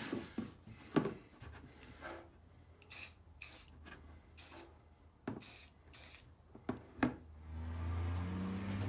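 Aerosol can of Rust-Oleum spray paint being sprayed in short bursts, about five quick hisses, with a few knocks in between. A low hum builds near the end.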